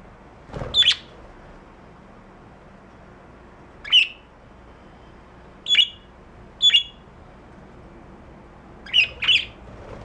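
Budgerigars giving short, sharp squawking calls, about six in all, singly and in quick pairs a second or two apart. A dull low thump comes with the first call.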